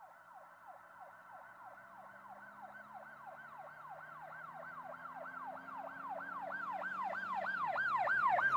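Emergency vehicle siren in a fast yelp, its pitch sweeping up and down about three and a half times a second, growing steadily louder as it approaches.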